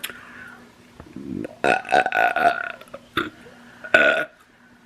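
A person burping: a long, rattling burp about a second and a half in, followed by two shorter burps near the end.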